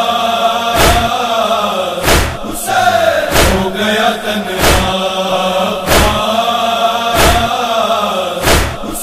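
Mourners chanting a Muharram nauha (lament) in a drawn-out chorus, kept in time by a heavy beat about once every 1.3 seconds, typical of matam chest-beating.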